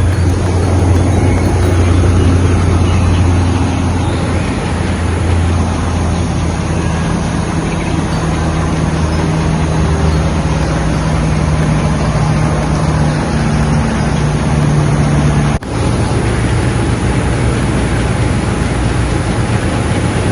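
Steady low rumble of a running motor vehicle, with an even hum throughout. It breaks off for an instant about three-quarters of the way through.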